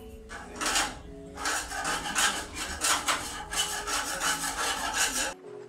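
Rust being scraped by hand off a bus's steel roof frame: repeated scraping strokes, about two to three a second, that start about half a second in and stop abruptly near the end.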